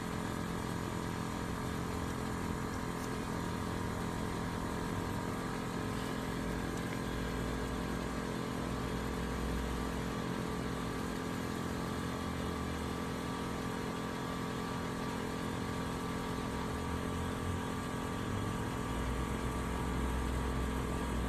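Kleinn onboard air compressor running steadily with a constant hum, filling a tire as it climbs from about 30 toward 35 psi.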